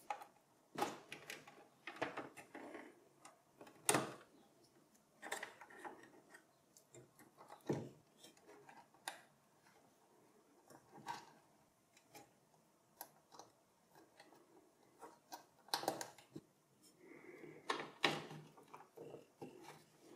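Irregular small plastic clicks and taps, with faint rustling between them, as cable connectors are handled and pushed onto a desktop PC motherboard's headers.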